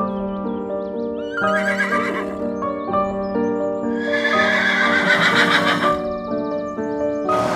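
Zebra calling over background music: a short braying call about a second and a half in, then a longer, louder one about four seconds in, each made of quick yelping pulses.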